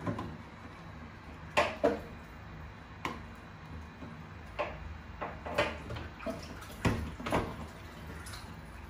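Small plastic bottle handled at a steel kitchen sink, knocking and clattering: several irregular sharp knocks and clicks, the loudest two about a second and a half in.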